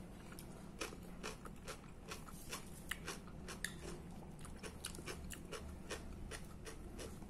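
Close-up chewing of a mouthful of fresh salad of cucumber, tomato and lettuce: soft irregular crunches, several each second.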